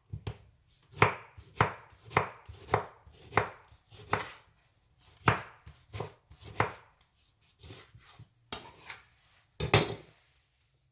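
Kitchen knife slicing tomato, its blade knocking on a cutting board in steady strokes, close to two a second for the first few seconds. The strokes then come more sparsely, with one louder knock near the end.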